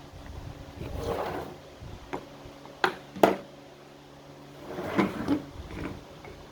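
A few sharp knocks and some rustling and scraping as things are handled at a workbench, over the steady hum of a shop fan.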